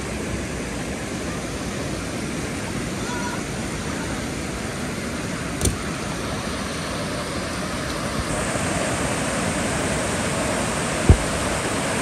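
Water rushing steadily over low stepped weirs into a shallow pool, growing slightly louder after about eight seconds. Two short knocks cut through it, the louder a dull thump near the end.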